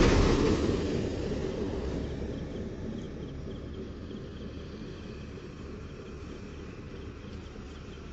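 A passing vehicle fades away over the first couple of seconds, leaving a faint low rumble with insects chirping faintly in the background.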